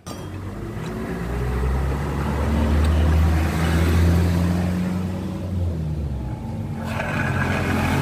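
Suzuki Nex scooter's single-cylinder engine running with the CVT cover off, revved up over the first few seconds and eased back after about five. This is the rough growl ("ngorok") under throttle that the mechanic suspects comes from the rear pulley bearing or the final-drive (ratio) bearings.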